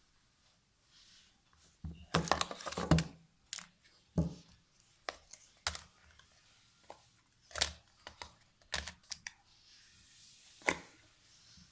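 Packaging being torn open and handled for unboxing: a burst of tearing about two seconds in, then scattered sharp clicks and taps.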